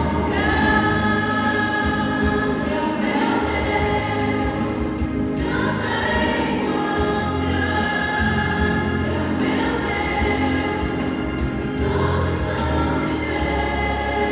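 A teenage church choir singing a gospel hymn in Portuguese, with instrumental accompaniment carrying a steady bass line underneath.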